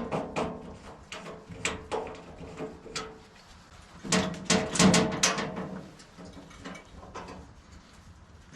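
Latches and hinged metal blade-housing doors of a Woodland Mills sawmill clicking and clanking as they are opened, with a close run of rattling knocks about four to five seconds in.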